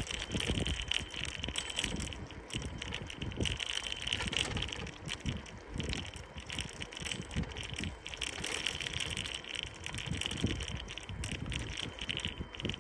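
Wind buffeting the microphone in uneven gusts while riding a bicycle, with the tyres rumbling over cracked, patched asphalt.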